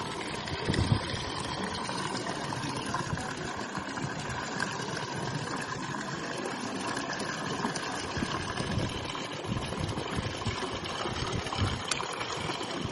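Water trickling and gurgling steadily, a small flow of running water.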